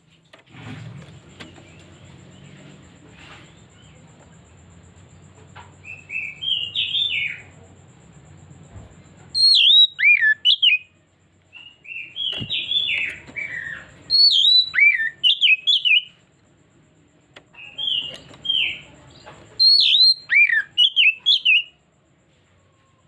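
Oriental magpie-robin (kacer) singing in several loud bursts of clear, whistled phrases with quick swooping notes, separated by short pauses, the first beginning about six seconds in.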